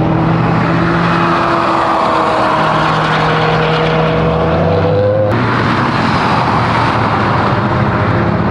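Car engine pulling hard at a race track, its pitch climbing slowly under a loud, even rush of noise. The sound changes abruptly about five seconds in.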